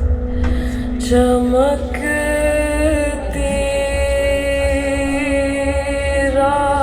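Recorded music played over Wilson Benesch Omnium hi-fi loudspeakers: held, chant-like sung notes over a continuous deep bass.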